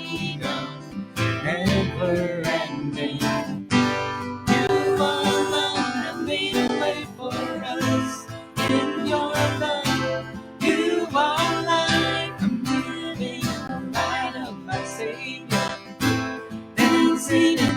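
Worship band playing a song's instrumental introduction, led by strummed acoustic guitar.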